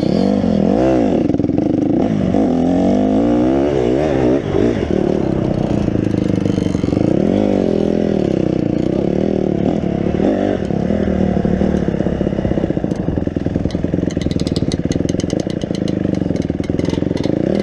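Honda motocross dirt bike engine, heard from on board, revving up and down again and again under riding load. A rapid run of clicking comes in near the end.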